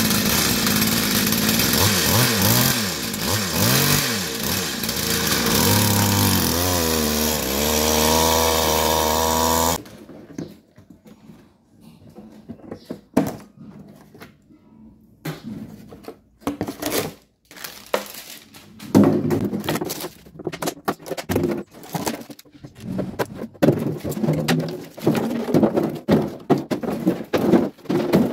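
Two-stroke chainsaw engine driving a homemade outboard propeller shaft, running and revving up and down, cut off suddenly about ten seconds in. After that, empty plastic bottles crinkle and clatter as they are handled and tossed onto a pile on a tiled floor.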